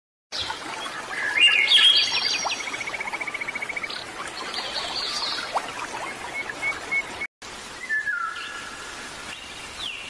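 Several birds singing and calling, one with a fast trill of rapidly repeated notes, over a steady hiss like running stream water. The sound cuts out for a moment about seven seconds in, and then a single whistled call falls in pitch.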